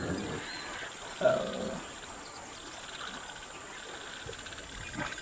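A single short animal cry about a second in, over a steady outdoor hiss.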